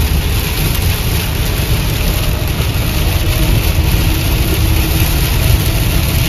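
Steady noise inside a moving car's cabin in a heavy downpour: a low rumble of tyres on the wet road mixed with the hiss of rain hitting the car.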